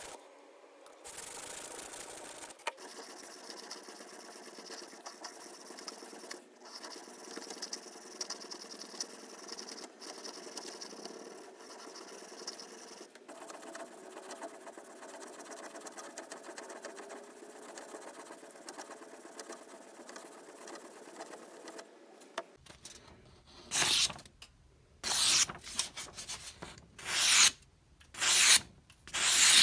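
Knife blade rubbing on a sharpening stone in steady, even strokes. From about 23 seconds in, a series of loud separate strokes, about one a second, as the sharpened blade slices through a sheet of paper to test its edge.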